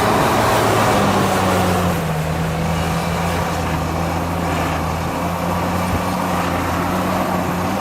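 Heavy diesel engine of construction machinery running steadily, its note dropping slightly about two seconds in.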